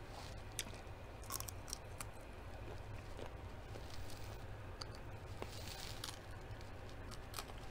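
Close-up eating sounds: chewing french fries, with scattered small crisp clicks and wet mouth noises over a low steady hum.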